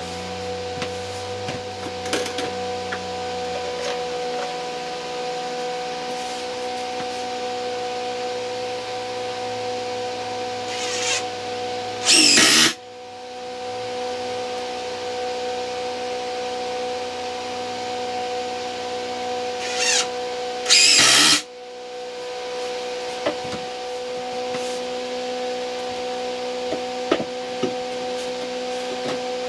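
Cordless drill-driver driving screws into a 2x4 wooden frame: two short bursts of about a second each, some nine seconds apart, each starting softly and then running at full speed. Light knocks and rubbing of lumber being handled are heard between them, over a steady background hum.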